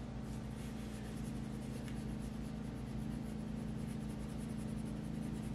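Black colored pencil scratching on paper in quick, even shading strokes, laid over felt-marker colour, over a steady low hum.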